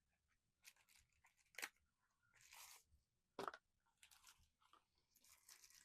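Small cardboard blind box being worked open by hand: faint tearing and rustling, with two sharp clicks about one and a half and three and a half seconds in.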